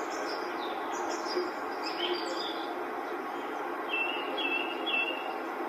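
Birds chirping over a steady hiss of background noise. Near the end come three short, identical whistled notes about half a second apart.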